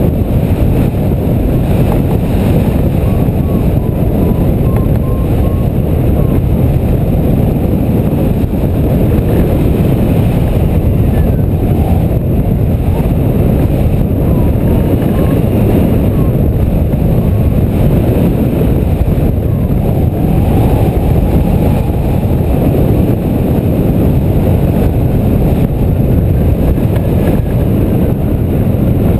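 Loud, steady rumble of airflow buffeting the glider-mounted camera's microphone as a hang glider circles in a thermal.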